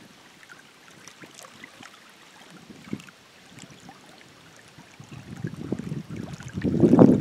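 Wind buffeting the microphone on open water, building from about five seconds in and loudest near the end, after a quiet stretch with faint scattered ticks.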